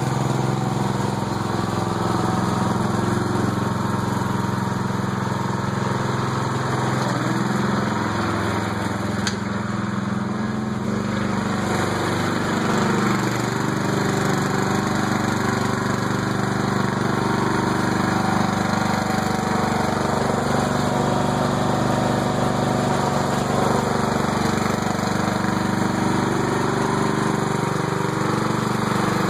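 Craftsman lawn tractor's single-cylinder 16 hp Briggs & Stratton engine running steadily under load as the tractor is driven. The drive is through its freshly flushed and refilled six-speed Peerless gear-drive transaxle, which was being worked through the gears.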